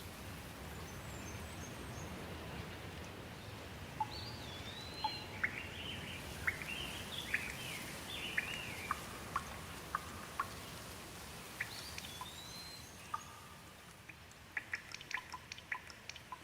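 Steady rain with a bird calling over it in short chirping phrases from about four seconds in. Near the end the rain thins and single drops ticking sharply take over.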